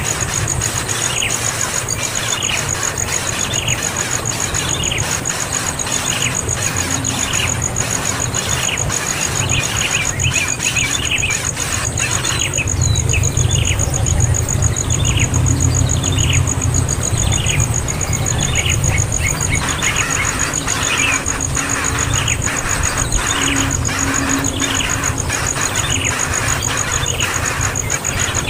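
A young bird's shrill begging calls: short downward-sliding chirps repeated a few times a second, the cries of a hungry, greedy chick. A steady high-pitched whine and a low rumble run underneath.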